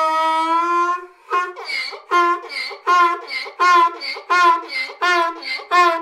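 Donkey braying: one long held note, then a quick run of alternating hee-haw calls that stops abruptly near the end.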